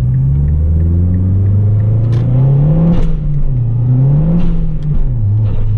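MazdaSpeed 3's turbocharged four-cylinder engine, heard from inside the cabin, accelerating through the gears. The engine note climbs, falls at an upshift about three seconds in, climbs again, and falls at a second upshift about five seconds in.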